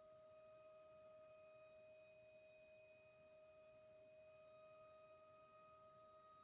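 Faint outdoor tornado warning siren holding a steady pitch, several tones sounding together like a chord, the higher ones dropping out and coming back.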